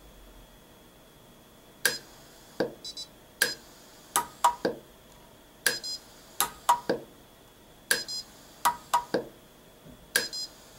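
Orion M-Pulse pulse arc micro welder firing weld after weld as thermocouple wires are tacked to a metal substrate: a run of short sharp clicks, many coming in quick pairs or threes, starting about two seconds in.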